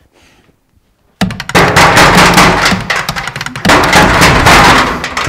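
After about a second of near silence, a sudden loud burst of rapid cracking and clattering noise starts and runs for about four seconds, easing off near the end.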